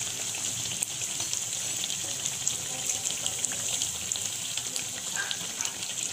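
Besan-batter potato pakoras deep-frying in hot oil in a kadhai: a steady sizzle with small crackles throughout.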